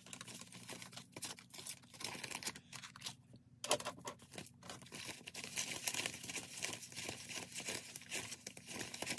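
Paper banknotes rustling and crinkling as a stack of cash is handled and counted bill by bill, a run of quick crackly flicks that gets busier from about four seconds in.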